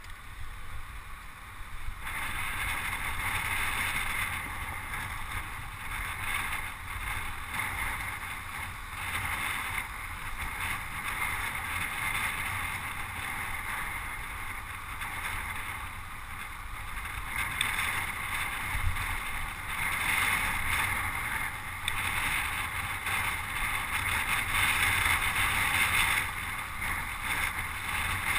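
Wind rushing over the microphone of a camera riding on a racing bicycle, with tyre and road noise underneath: a steady rushing noise that gets louder about two seconds in.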